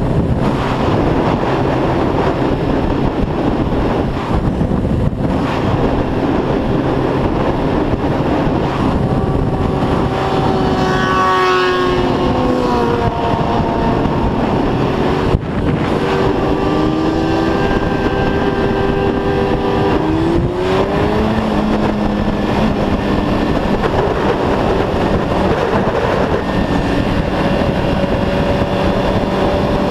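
Heavy wind rush over the microphone with a sport motorcycle's engine running at riding speed underneath, its pitch shifting up and down a few times around the middle and then holding steady. One sharp click about halfway through.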